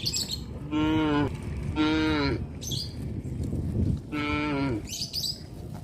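Cattle mooing: three short moos, each falling in pitch at the end.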